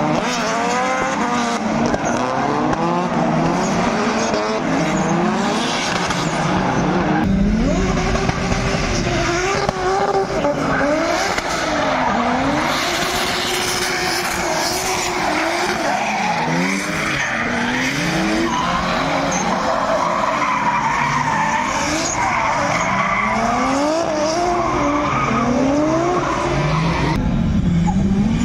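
Drift cars sliding through a corner: engines revving up and down again and again as the throttle is worked, over the steady noise of tyres spinning and sliding on the asphalt.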